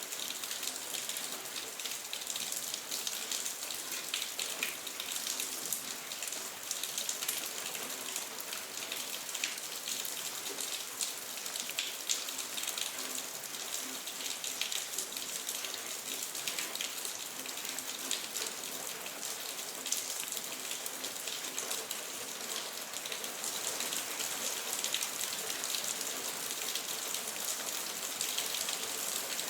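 Steady rain falling, a dense hiss full of fine individual drop patters, with no change in strength.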